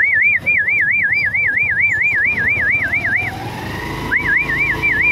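A shrill warbling signal tone, rising and falling about four or five times a second, sounds in two bursts with a short break between them, over the noise of car traffic.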